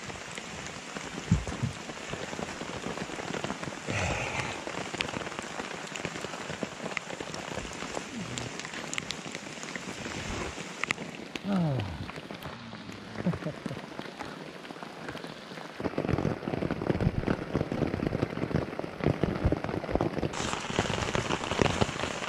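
Steady rain falling on a poncho shelter and wet leaf litter. The drop hits get louder and more distinct in the last third.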